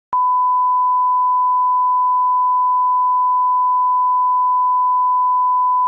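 Broadcast line-up test tone accompanying colour bars: a single steady beep at one unchanging pitch, starting with a small click just after the start.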